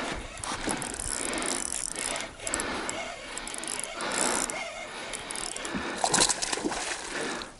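Spinning fishing reel being cranked while a hooked fish is played, a rattling mechanical whirr with clicks.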